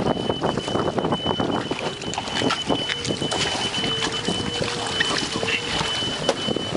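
Choppy water splashing and sloshing as a wooden paddle digs in beside a small outrigger canoe, with wind buffeting the microphone. A thin, steady high-pitched whine runs underneath throughout.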